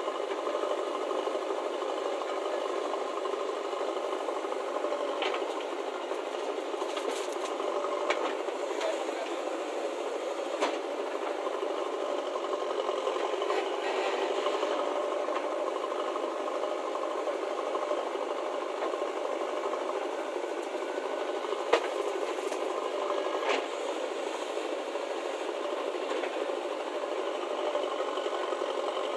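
Diesel engines of a JCB backhoe loader and a Massey Ferguson tractor running steadily with a mechanical clatter, while the loader works, broken by a few brief sharp knocks.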